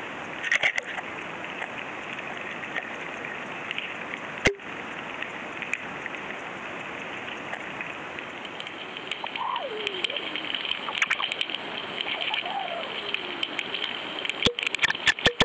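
Underwater camera audio: a steady crackling hiss of water against the housing, with a sharp knock about four seconds in and a cluster of clicks near the end, and a few faint sliding squeaks in the second half.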